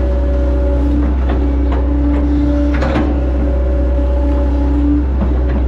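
Hitachi Zaxis 110 excavator heard from the operator's cab. The diesel engine runs with a steady low drone, a hydraulic whine comes and goes as the arm and bucket move, and a few knocks and clanks sound about three seconds in and near the end.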